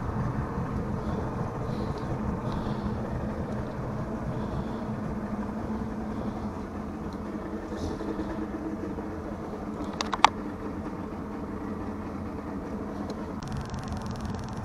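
Bass boat's outboard motor idling at low throttle, a steady drone. One sharp knock about ten seconds in, and the sound changes near the end.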